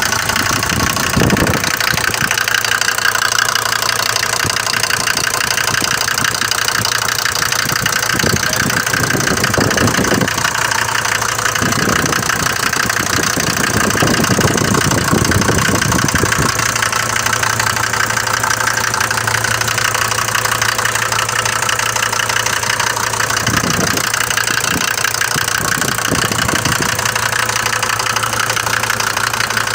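Mercedes diesel engine idling after a morning start with a loud, heavy knocking clatter, heavier than the usual tick of these engines; the mechanic links it to a possibly worn cylinder or head, or to the injection pump setting.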